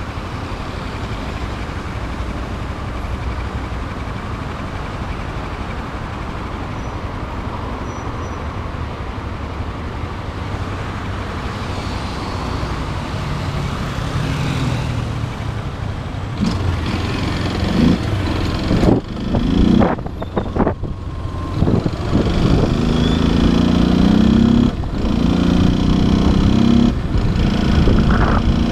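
Motorcycle engine running low and steady at first. From about halfway it accelerates, louder, with the engine note rising and a few brief drops as gears are shifted.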